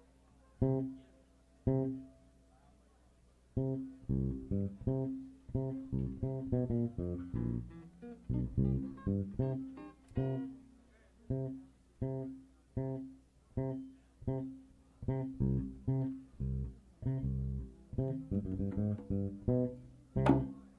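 Electric bass and guitar playing a choppy funk line of short, separate plucked notes: a few single notes about a second apart, a pause, then a busier run from about three and a half seconds in. A sharp click comes near the end.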